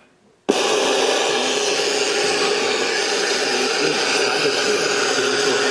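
Static hiss from a DuraBrand CT995 AM/FM radio cassette recorder's speaker, coming on suddenly about half a second in and running steady and loud with a constant hum-like tone: the repaired set now has power and is playing between or on a weak station.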